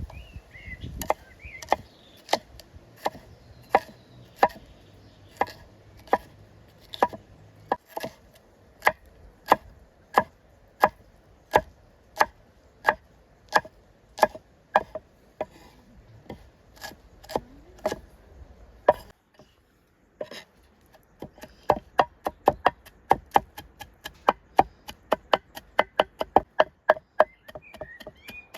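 Knife chopping food on a cutting board in steady strokes, about one and a half a second. After a short pause about two-thirds of the way in, the chopping picks up to about three strokes a second.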